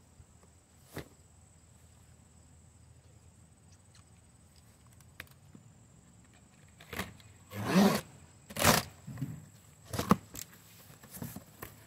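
Cardboard shipping box being opened by hand: after a quiet stretch with one soft knock about a second in, a run of loud rips and scrapes starts about seven seconds in as the packing tape is torn off and the cardboard flaps are pulled open.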